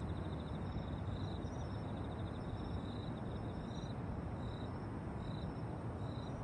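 Crickets chirping in short repeated trills over a faint, steady background hiss.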